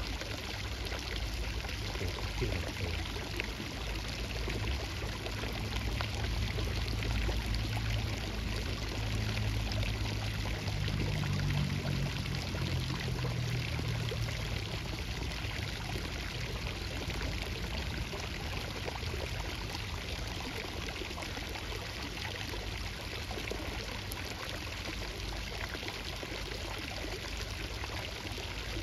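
Steady rush of flowing, pouring water, with a low hum that swells up and fades away in the middle.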